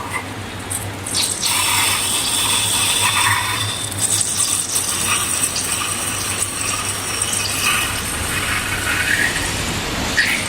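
Liquid being poured into a container during slime making: a steady splashy hiss that begins about a second in and stops near the end.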